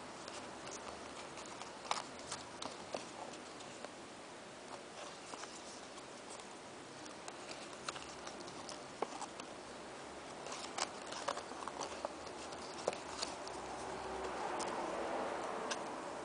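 A folded paper hexaflexagon being flexed by hand: soft paper rustling with irregular small clicks and ticks as the folds snap open and shut under the fingers, and a louder stretch of rustling near the end.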